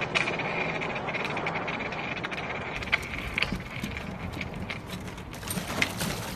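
Skateboard (longboard) wheels rolling over paving stones: a steady rolling rumble with scattered short clicks, more of them near the end.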